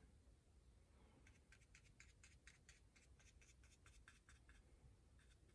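Near silence, with faint quick ticks of a round paintbrush dabbing acrylic paint onto mixed media paper, several a second.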